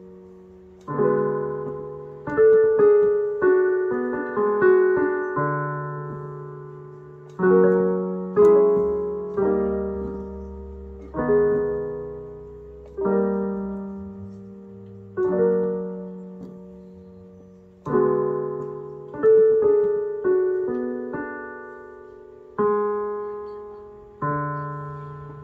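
Piano playing a slow tune: notes and chords struck every second or two, each left to ring and fade.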